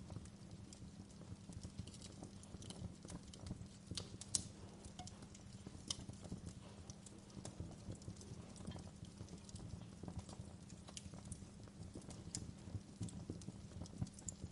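Wood fire in a fireplace crackling, with irregular sharp pops over a steady low rumble; the loudest pop comes about four seconds in.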